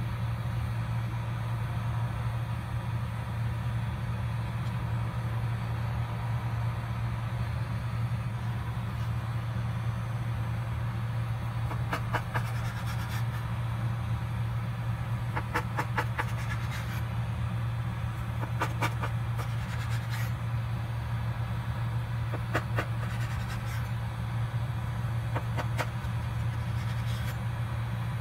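A steady low hum throughout. From about twelve seconds in, short clusters of sharp clicks come every few seconds as a kitchen knife cuts through a rolled samosa dough log and strikes the cutting board.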